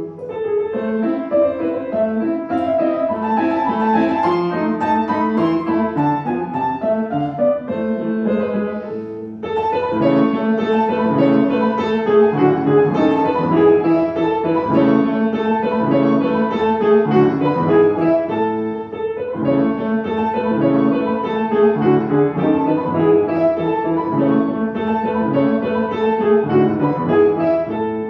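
Piano playing a classical piece, with chords and runs; it eases off briefly about nine seconds in and comes back louder.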